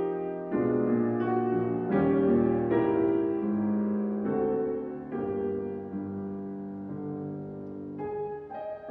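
Steinway piano played solo in a classical style, with chords and notes struck every half second to a second and each left ringing into the next.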